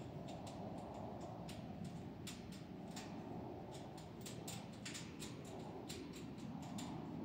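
Irregular light clicks and taps, several a second, from wire mesh and fasteners being worked against a steel-pipe frame, over steady low background noise.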